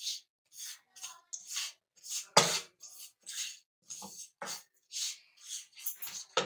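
Wooden spatula scraping and stirring a dry, crumbly besan and spice mixture in a non-stick frying pan: a quick run of short scrapes, about three a second, with one louder stroke about two and a half seconds in.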